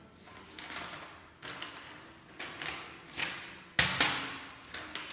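A sheet of paper handled and crackling in short sharp bursts, then a hand slapping against it with a loud thud about four seconds in, followed by a few lighter taps.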